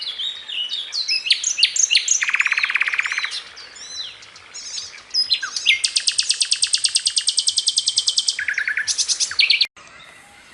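Two songbirds singing: quick varied chirps and whistled sweeps, a fast buzzy trill about two seconds in, and a long rapid high trill from about six seconds to eight and a half. The sound cuts off abruptly near the end.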